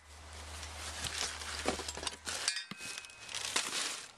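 Steel seat-extender brackets clinking and knocking as they are lifted out of a cardboard box and set down on the ground, with some rustling between the knocks.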